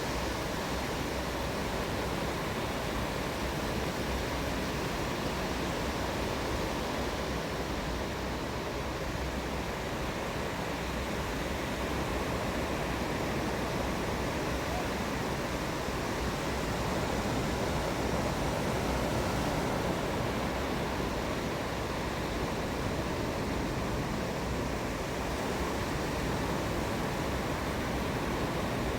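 Ocean surf breaking and washing on the shore, a steady even hiss with no separate wave-by-wave swells.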